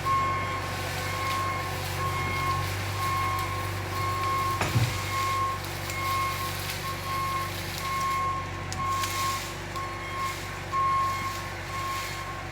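A heavy vehicle's reversing alarm beeping steadily at one pitch over its engine running, with a single knock about halfway through.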